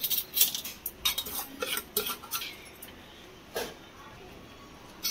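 A steel spoon clinks and scrapes against a metal bowl and kadhai as desiccated coconut is tipped in. There are several quick clinks over the first two seconds and one more about three and a half seconds in.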